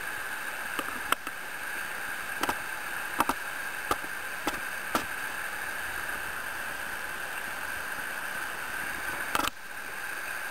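Steady rushing of whitewater river rapids, with several sharp clicks scattered through the first half and one more near the end.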